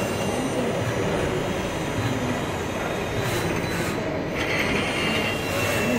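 Ace Jobber XL CNC lathe running with its 6-inch chuck spinning and no cutting: a steady mechanical whir of the spindle drive with a few thin whining tones. The sound shifts about four seconds in.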